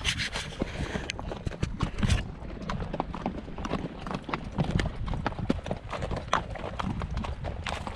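Horses' hooves clip-clopping on a stony trail, a steady run of uneven footfalls. A low rumble on the microphone runs beneath them.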